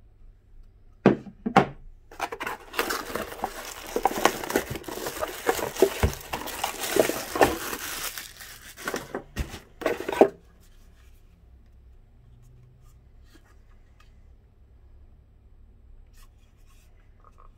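Packaging being handled and opened by hand: a dense run of rustling with sharp clicks and knocks that starts about a second in and stops about ten seconds in.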